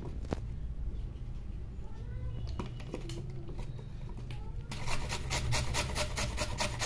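Fresh carrot being grated on a coarse-toothed handheld grater over a steel plate. After a pause broken by a faint click, rapid rasping strokes start about two-thirds of the way through, several a second.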